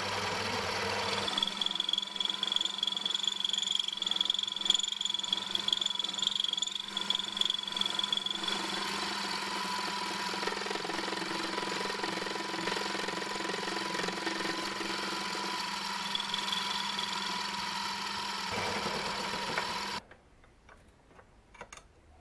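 Small metal lathe running under power while a tool cuts a thin metal sector arm on the faceplate: a steady motor whine, with a high-pitched ring from about one to eight seconds in as the thin section vibrates in the cut. The lathe shuts off suddenly about twenty seconds in.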